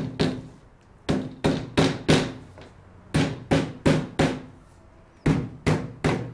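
Rubber mallet tapping a fixing strip down onto the edge of a polycarbonate awning board: sharp knocks in runs of about four, roughly three a second, with short pauses between runs.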